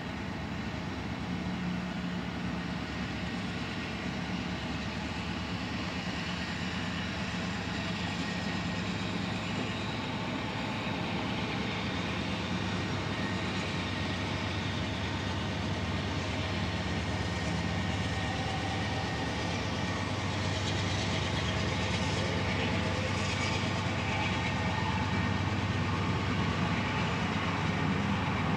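Freight train passing: the low, steady drone of Union Pacific diesel-electric locomotives, then covered hopper cars rolling by on the rails, growing gradually louder.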